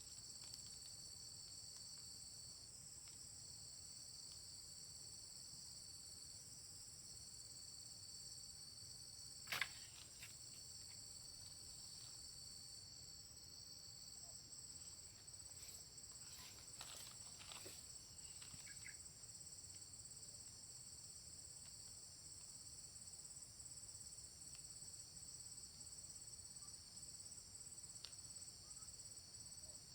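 Steady chorus of insects: several overlapping high-pitched continuous trills. A single sharp knock comes about ten seconds in, and a few fainter knocks follow a little later.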